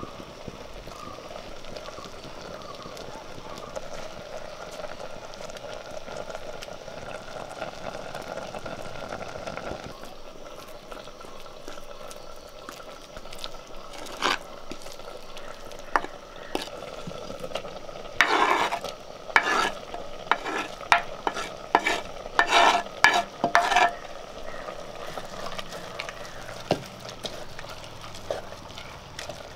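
A ladle stirring raw papaya curry in a clay pot over a wood fire, with a steady hiss from the pot at first. Later comes a run of about a dozen sharp knocks as the ladle strikes the clay pot while the ground coconut paste is worked in.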